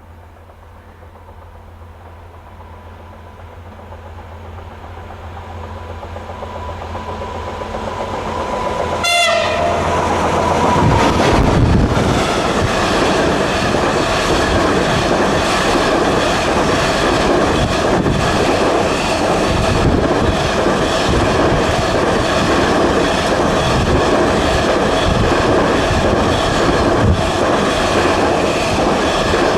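Vossloh G2000 diesel-hydraulic freight locomotive approaching, its engine growing steadily louder, with a brief horn blast about nine seconds in as it reaches the microphone. The engine then passes loudly and the train's wagons follow, rumbling and clattering over the rail joints.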